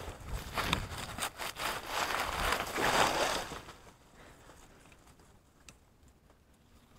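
Rustling and crunching of dry leaves and undergrowth as someone pushes through brush on foot, with scattered snaps. Loudest for the first three and a half seconds, then it drops away to a faint rustle.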